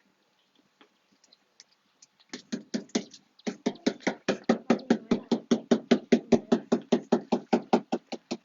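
Rapid, even knocking at about five strikes a second, starting about two seconds in: the new rubber door weatherstrip being tapped down into its channel on the door frame.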